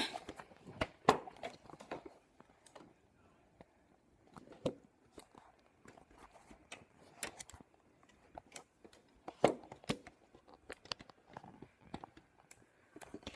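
Handling noise of a camera being picked up and carried against a sweatshirt: scattered quiet clicks, knocks and fabric rustles.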